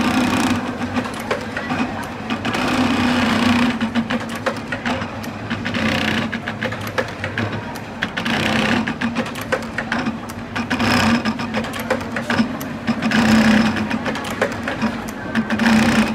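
Computerized pattern sewing machine stitching shoe-upper pieces clamped in a template: rapid needle strokes over a steady motor hum, the level swelling and easing every few seconds.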